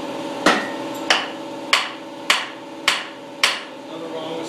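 Hammer blows on a Ford 289 V8's cast-iron cylinder head: six sharp strikes, about one every 0.6 s, knocking the head loose from the block.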